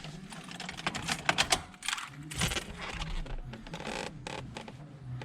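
Light metallic clicks and clinks of hand tools and small fasteners, with a quick run of sharp clicks about a second in.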